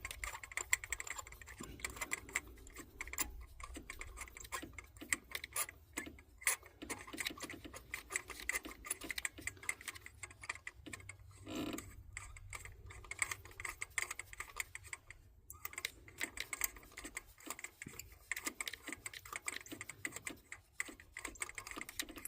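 Ratchet wrench clicking in quick, uneven runs while spark plugs are being backed out.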